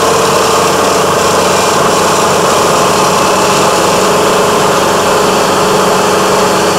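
Vermeer SC502 stump grinder running steadily at high speed, its engine and spinning cutter wheel making a loud, unbroken drone.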